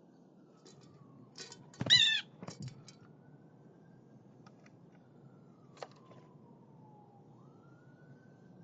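One loud, wavering bird call lasting under half a second, about two seconds in, with a few sharp clicks just before and after it.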